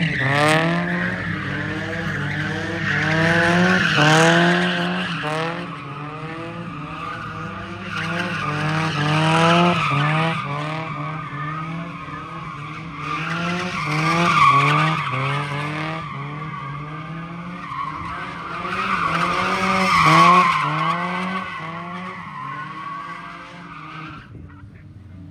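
Mazda Miata doing donuts: the engine revs up again and again in quick pulls, about two a second, while the tyres squeal. It swells louder every five seconds or so as the car circles, then fades near the end.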